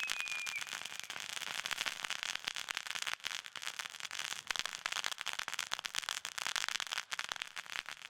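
Firework cake-and-fountain combo going off: a steady spraying hiss thick with crackling and sharp pops, with a falling whistle that fades out in the first half second.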